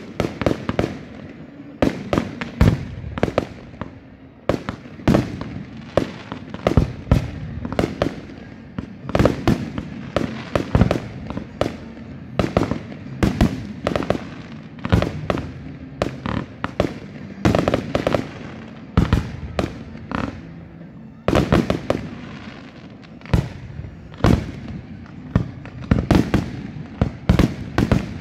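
Aerial firework shells launching and bursting: many sharp bangs in quick, uneven succession, several a second.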